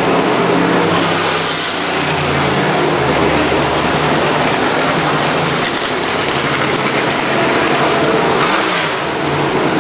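Race car engines running in a steady drone, with a broad rushing noise over it.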